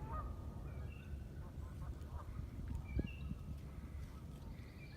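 Faint scattered calls of waterfowl on the lake, over a steady low rumble.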